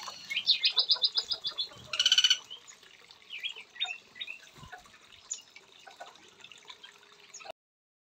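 Small songbirds calling: a quick run of about eight high notes near the start, a loud harsh call about two seconds in, then scattered short high chirps. The sound cuts off suddenly shortly before the end.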